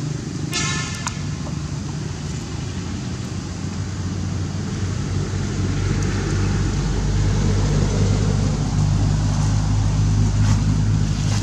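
Motor vehicle engine running, a steady low hum that grows louder from about halfway through. A short high-pitched toot sounds near the start.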